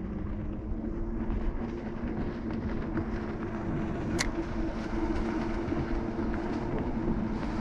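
A small motor humming steadily on two held tones over a low rumble, having just risen in pitch. A single sharp click about four seconds in.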